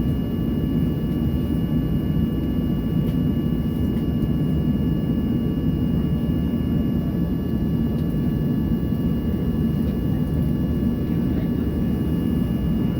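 Boeing 737-800's CFM56 jet engines running at a steady idle, heard inside the cabin as an even low rumble with a few faint steady whining tones above it.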